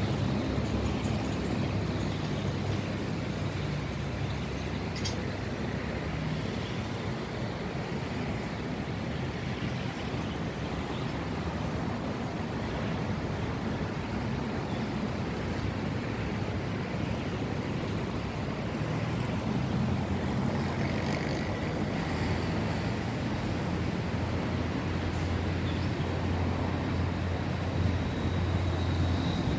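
Steady low rumble of distant road traffic, with a deeper hum growing stronger over the last third.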